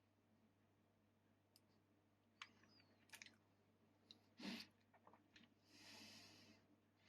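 Very faint scattered clicks and small handling noises from tweezers plucking nose hairs, then a short breathy hiss, about a second long, some six seconds in.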